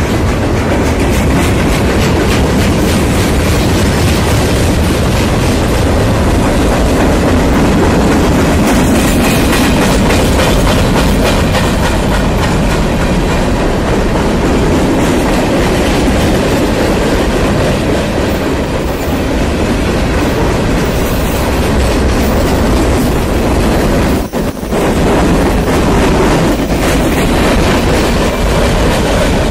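Freight train cars rolling past close by, autorack and covered hopper cars: a loud, steady rumble of steel wheels on rail with a continuous clickety-clack, briefly dipping about three-quarters of the way through.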